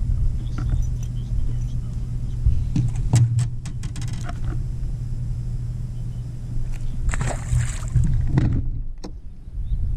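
Steady low hum of a bass boat's bow-mounted electric trolling motor, with a few sharp knocks about three seconds in and a short rushing noise a little after seven seconds.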